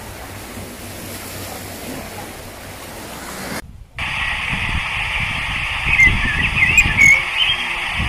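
Sea surf washing against a rocky shore, heard as a steady hiss. After a sudden cut about three and a half seconds in, wind buffets the microphone in gusts, and a few short, high chirps come near the middle of that second part.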